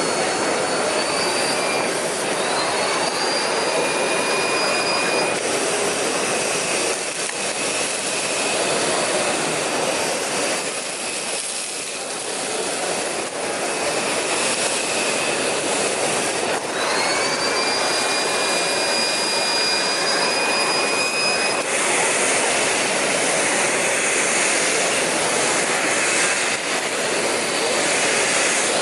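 Miele Blizzard CX1 bagless canister vacuum running during vacuuming, a steady rush of suction air through its air-driven turbo nozzle. A high whine rises and then holds level several times as the load on the machine changes.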